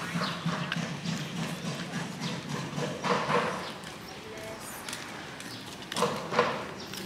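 Busy public ambience: a steady low hum under irregular clattering knocks, with brief snatches of people's voices about three seconds in and again near the end.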